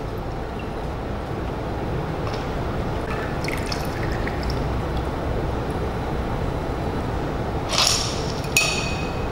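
A stirred cocktail being poured from a glass mixing glass of ice through a bar strainer into a martini glass, the liquid trickling with faint ice clinks. Two sharper glass clinks come near the end, the second one ringing briefly.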